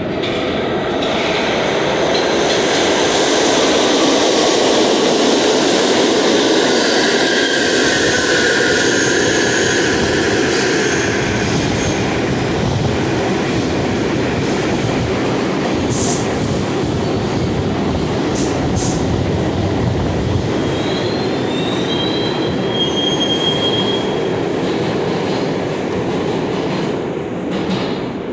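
R62A subway train on the 6 line pulling into the station and braking to a stop: a loud steady rumble and clatter of wheels on the rails, with wheel squeal partway through and thin high squeals as it slows near the end.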